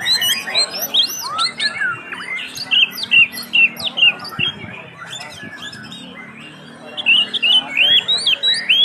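Oriental magpie-robin (kacer) singing in full song: a rapid, varied run of whistled notes and chirps, many of them sliding up or down. The song thins out in the middle and comes back in a fresh dense burst near the end.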